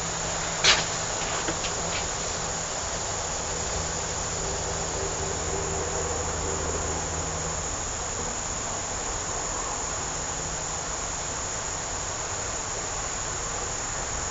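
Steady high-pitched insect chorus. A single sharp knock comes just under a second in, and a low hum runs underneath until about halfway.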